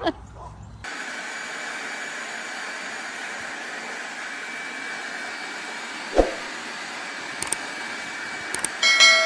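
Steady rushing air of a handheld electric blower nozzle, starting about a second in. Near the end a brief pitched squeal is the loudest sound.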